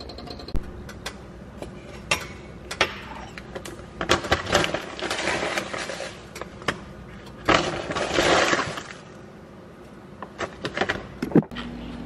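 Clinks and scrapes of a utensil in a stainless steel pot of milk and cocoa powder, with two longer stretches of noisy scraping about four and seven and a half seconds in.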